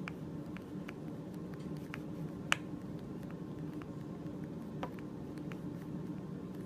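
Hands pressing and moulding soft red clay into a small rounded dish: scattered soft clicks and taps from fingers and the dish, with one sharper click about two and a half seconds in, over a steady low hum.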